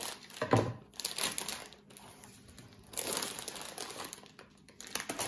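Plastic snack bag crinkling in irregular bursts as it is cut open with scissors and pulled apart by hand, the loudest crackle about half a second in.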